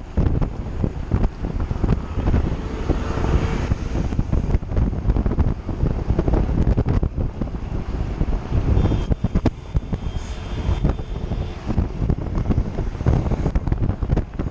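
Wind buffeting the microphone of a camera on a mountain bike riding fast on a road, a steady low rush with road noise mixed in.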